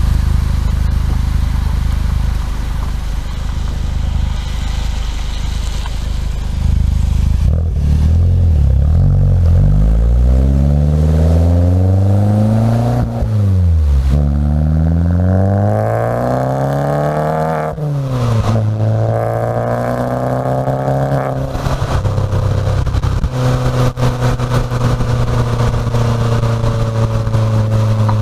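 Fiat 500 Abarth's turbocharged 1.4-litre four-cylinder, heard from inside the cabin through a catless downpipe and twin-muffler cat-back exhaust. It rumbles low while the car rolls slowly, then revs up under acceleration with a rising note that drops at two gear changes about four seconds apart. After that it settles into a steady drone at cruising speed.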